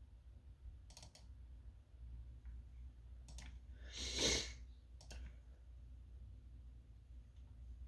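Computer mouse clicking in quick double clicks, three times over a few seconds. A short breathy sniff about four seconds in is the loudest sound.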